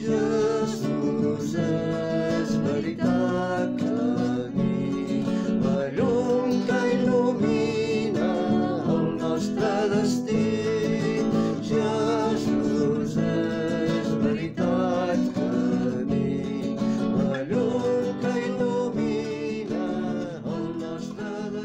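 A Catalan liturgical song: a voice singing over acoustic guitar accompaniment.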